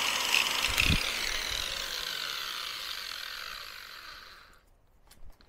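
Angle grinder with a diamond polishing pad running down after being switched off: a whirring that falls in pitch and fades away over about four and a half seconds, with a dull knock about a second in.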